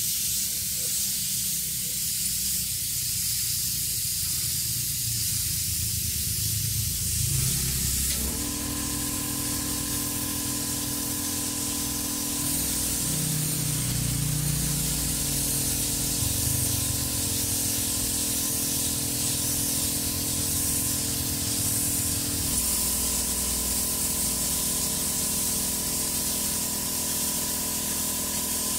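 Spray paint hissing steadily as an engine side cover is coated. A steady hum with several even tones joins about eight seconds in.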